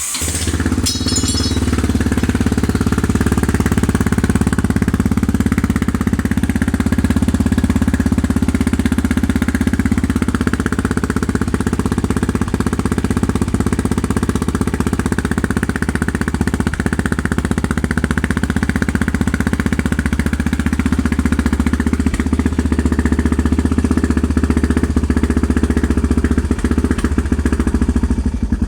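Yamaha XT's single-cylinder four-stroke engine catching at the very start and then idling steadily with the choke pulled, exhaust note straight out of a GPR silencer with its dB killer removed.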